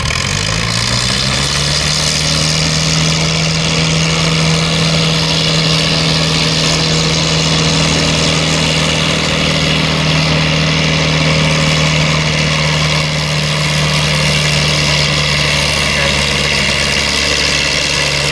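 Antique tractor's engine pulling a weight-transfer sled: it revs up over the first second or so, then runs at a steady high speed under load.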